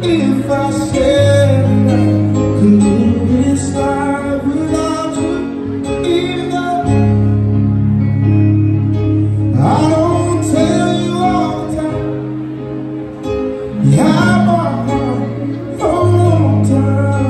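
Live band playing a slow song: a male singer with keyboard and guitar accompaniment, amplified through the stage speakers. Held low bass notes run underneath, and sung phrases come and go.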